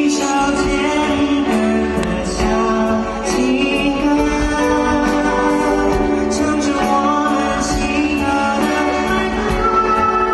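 Live band music with a lead singer, amplified over a concert sound system.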